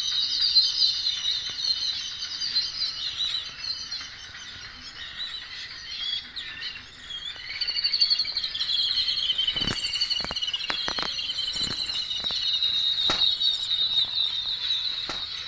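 A group of babblers chattering: rapid, squeaky, overlapping notes that die down for a few seconds in the middle and then pick up again. A few sharp clicks sound about two-thirds of the way through.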